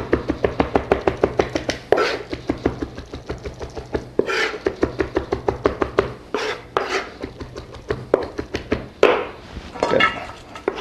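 Chef's knife rapidly dicing roasted red pepper on a cutting board: quick, even taps of the blade on the board, about seven a second, broken by a few longer, noisier strokes.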